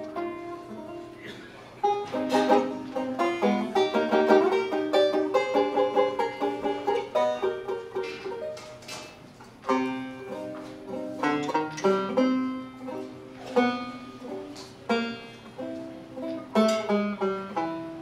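Plectrum banjo played solo with a pick: a melody of picked single notes and struck chords. Phrases die away, then start again with loud chords about two seconds in and again about ten seconds in.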